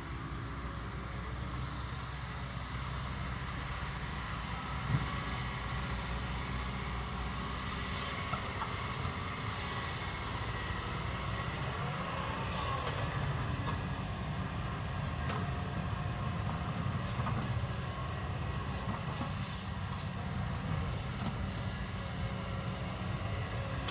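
Kobelco excavator's diesel engine running steadily as it works, with a faint whine that rises and falls and a single knock about five seconds in.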